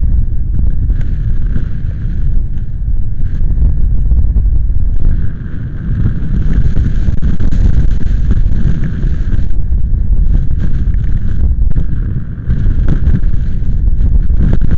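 Strong storm wind gusting across the microphone: a loud, low rumbling buffet with a hiss over it, easing briefly about five seconds in and again near the end.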